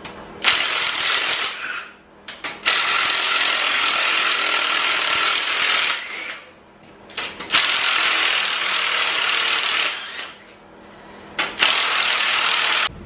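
Ratchet wrench running out the cylinder head bolts on a 350 small-block Chevy Vortec V8, in four bouts of steady ratcheting with short pauses between them as it moves from bolt to bolt.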